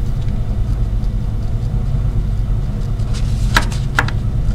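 Steady low hum, with the soft scratch of a pen writing on paper and two short clicks near the end.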